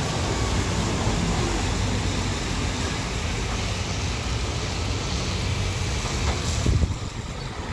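Scania heavy-haul trucks passing on a wet road: diesel engines running under a steady hiss of tyres on the wet asphalt, falling off near the end.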